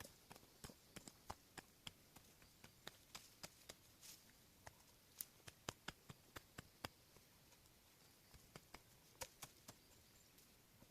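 Faint, irregular sharp clicks and pops, several a second in loose clusters, with a quieter stretch in the middle.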